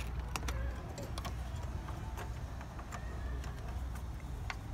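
Faint scattered clicks and taps of an LED headlight bulb and its plastic wiring connector being handled and worked into a car's engine bay, over a low steady hum.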